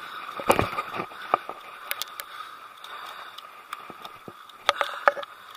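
Spinning reel and rod being handled as a fish is brought in to a rocky shore: scattered clicks and knocks over a steady hiss, with a louder thud about half a second in and a cluster of clicks near the end.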